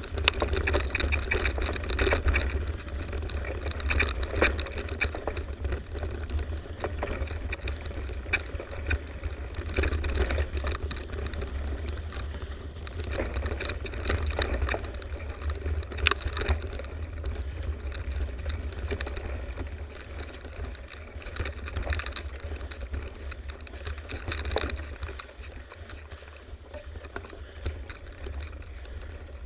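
Mountain bike riding over a dirt singletrack, heard through an action camera: wind buffeting the microphone as a steady low rumble, under an uneven clatter of knocks and rattles from the bike and tyres over the rough ground, busier in the first half.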